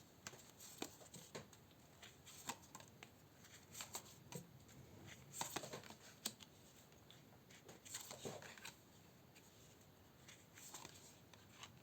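Faint, scattered rustles and soft clicks of tarot cards being shuffled and drawn, with near silence between them.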